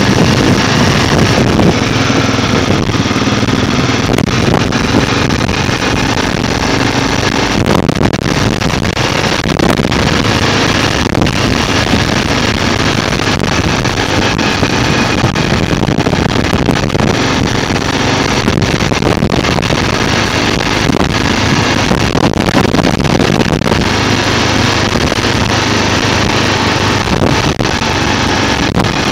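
Motorcycle engine running steadily while riding at road speed, with wind rushing over the microphone.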